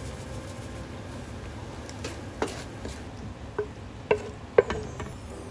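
Wooden spatula stirring and scraping a creamy pasta sauce in a frying pan, then scraping it into a ceramic gratin dish. In the second half come a few sharp knocks of utensil against pan and dish, each with a short ring, over a steady low background noise.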